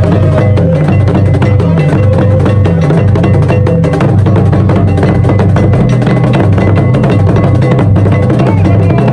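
Ga obonu drum ensemble playing: large carved standing drums and a pair of smaller drums struck with curved sticks, in a steady, dense rhythm of deep strokes.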